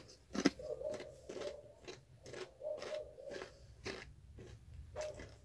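A person biting into and chewing crunchy spicy corn tortilla chips, the mouth close to the microphone: a sharp crunch about half a second in, then irregular crisp crackles as the chip is chewed.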